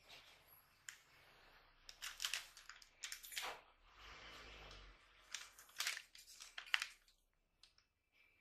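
Plastic food wrapper and paper bag crinkling and rustling as they are handled, in a few short bursts.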